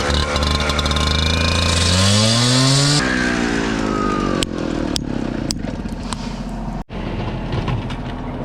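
A motor runs loudly and revs up, its pitch climbing about two seconds in. The sound changes abruptly about three seconds in and drops out briefly near the end.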